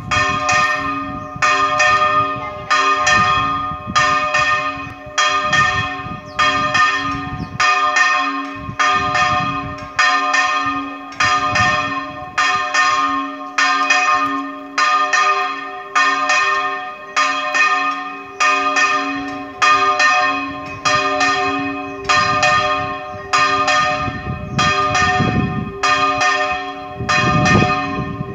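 A single church tower bell rung in a Spanish-style repique, struck at a steady pace of a little over one stroke a second. Each stroke rings on into the next over a lasting low hum.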